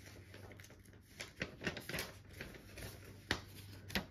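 Paper instruction sheets rustling and being shuffled by hand, with soft irregular clicks and crinkles.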